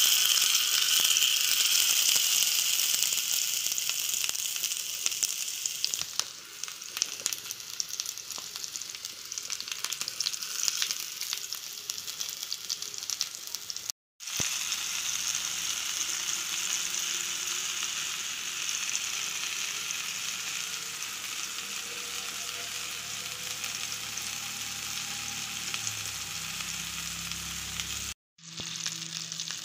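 Stuffed pointed gourds (parwal) sizzling in hot oil in a frying pan, a steady hiss with frequent crackles, loudest in the first few seconds. The sizzle breaks off briefly twice, about halfway and near the end.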